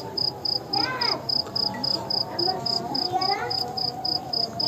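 A cricket chirping steadily, short high chirps evenly spaced at about four a second, with faint voices underneath.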